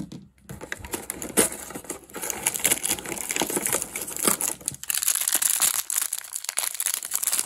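Cardboard door of a toy countdown calendar being pressed in and torn out. Then the figure's small plastic wrapper crinkles and crackles continuously as it is handled and torn open.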